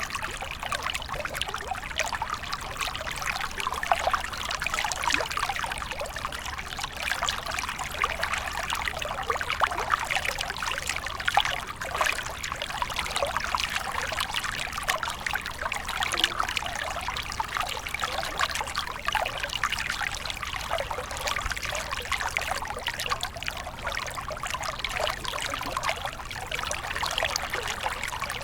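Flowing water trickling steadily, with many small splashes.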